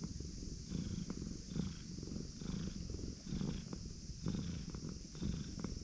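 Tabby cat purring close up while being stroked, a low rumble that swells and fades in a slow rhythm about once a second, a sign of the cat's pleasure at being petted.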